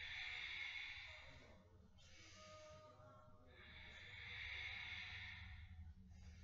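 A woman doing slow, audible Ujjayi yoga breathing, the air hissing through a narrowed throat. There are two long breaths of about two seconds each, the first at the start and the second from about three and a half seconds in, over a faint low room hum.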